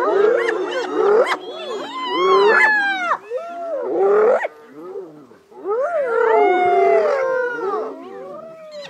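Several spotted hyenas calling at once: overlapping rising-and-falling squealing whoops, with a brief lull about halfway through.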